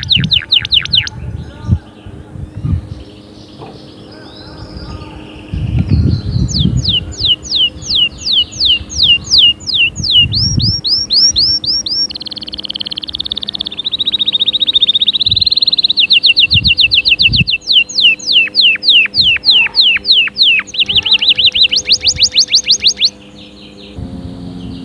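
Domestic canary singing a long song of fast trills, each a rapid run of repeated notes, switching to a new trill every second or two, with a quieter stretch a few seconds in.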